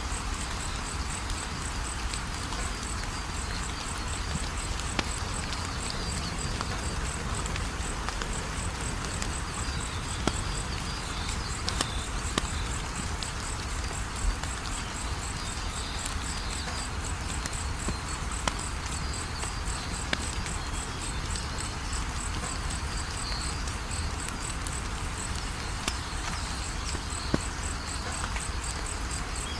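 Wood fire crackling, a steady hiss and low rumble with scattered sharp pops, over crickets chirping in a steady, even high-pitched pulse.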